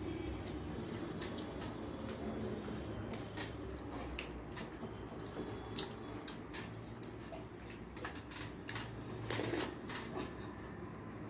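Fingers mixing rice into thin fish curry in a stainless steel plate: soft squelching with scattered light clicks of fingers on the metal, and louder slurping near the end as a handful is eaten.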